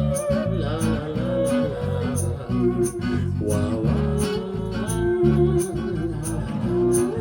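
Live band playing a song: plucked guitar over a bass line, with a steady percussion beat.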